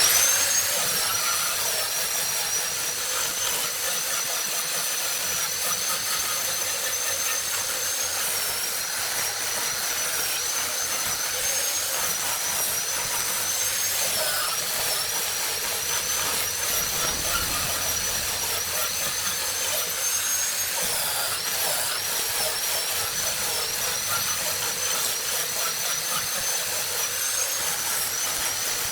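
A high-speed power tool running steadily with a high whine that dips in pitch now and then. It starts abruptly.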